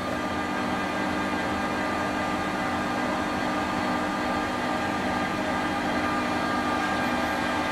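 Metal-turning lathe running, its spinning chuck and gearing giving a steady hum with several steady whining tones.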